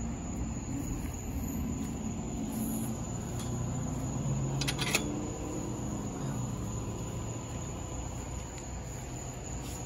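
Metal clank of a chain-link gate being opened, a sharp double click about five seconds in. It sits over a steady low hum.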